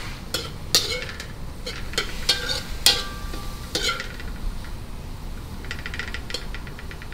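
A metal spoon scraping and clinking against a metal wok as shrimp and vegetables are stir-fried, with a low sizzle underneath. The clinks come irregularly, a few ringing briefly, with a quick run of taps near the end.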